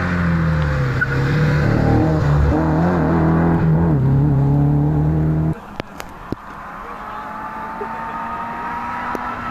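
Rally car engine at high revs passing close, its pitch rising and falling with the throttle and gear changes; the sound cuts off abruptly about five and a half seconds in. After that a more distant rally car engine is heard approaching, its pitch climbing steadily.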